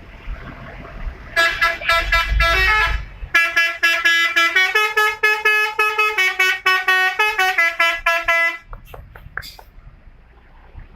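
A bus's telolet horn playing a multi-note tune in quick stuttering pulses, its pitch stepping up and down, starting about a second in and stopping after about seven seconds.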